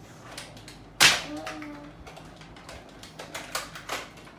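Plastic clicks and clacks of a Nerf Elite toy blaster being handled and primed, with one loud sharp snap about a second in as it fires.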